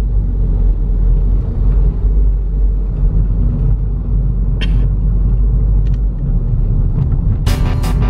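Steady low rumble of a car's engine and tyres heard inside the cabin while driving, with a few brief ticks. Music starts near the end.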